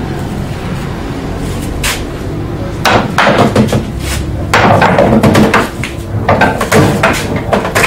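Pool balls on a snooker table: a single cue strike about two seconds in, then runs of clacks and knocks from about three seconds on as the balls collide and the object ball drops into a pocket. Background music plays underneath.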